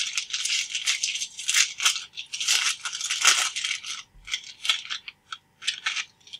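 Foil wrapper of a Bowman Draft baseball card pack crinkling and tearing as it is ripped open by hand, in irregular crackling bursts that stop near the end.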